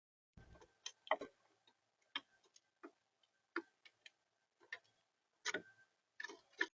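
A bird pecking and scratching at seed on a plastic smart bird feeder, close to the feeder camera's microphone: about a dozen light, irregular taps and clicks.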